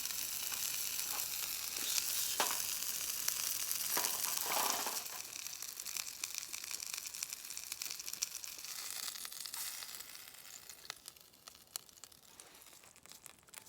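Food sizzling in a hot pan with scattered crackles. The sizzle is loud for about five seconds, then drops off sharply and fades away toward the end, as the food comes off the heat cooked through.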